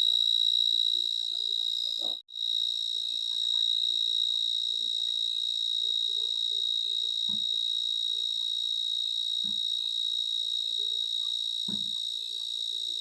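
Continuous high-pitched insect trill, like a cricket's or cicada's, held as one steady tone. It cuts out for a moment about two seconds in. Faint low thumps come about every two seconds in the second half.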